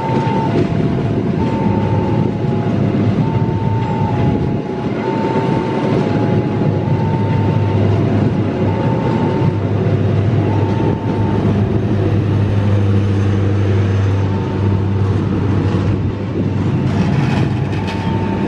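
Long train of stainless-steel passenger cars rolling past close by, steel wheels clattering on the rails over a steady rumble; a deeper steady hum swells in the middle. Through it a level-crossing warning alarm repeats a two-note electronic tone about every one and a half to two seconds.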